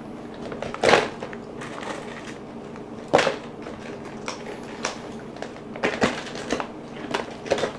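About five sharp knocks and clatters of plastic food containers and wrappers being handled on a kitchen table, the loudest about a second in and again a little after three seconds, over a steady low hum.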